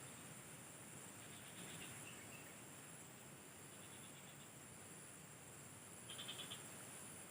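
Faint steady high-pitched insect chorus, with three short rapid trills of clicking calls; the last, about six seconds in, is the loudest.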